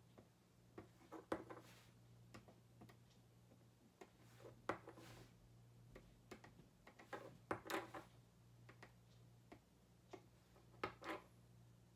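Faint, irregular light taps and clicks as the end of a paintbrush dabs acrylic paint dots onto a small wooden surfboard cutout on a tabletop, over a steady low hum.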